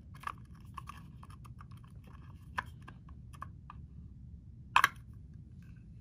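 Small plastic clicks and taps from the Roborock S50's suction fan motor housing being handled and pried apart by hand, with a sharper double click about five seconds in as the parts come apart.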